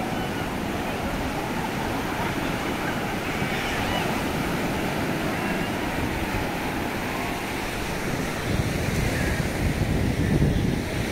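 Sea surf breaking and washing up a sandy beach, a steady rush of waves. In the last few seconds wind buffets the microphone and the low rumble grows louder.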